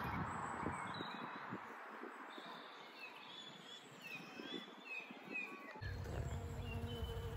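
Small birds chirping and singing, many short high chirps through the middle stretch. A low rumble sits under them at the start and comes back about six seconds in.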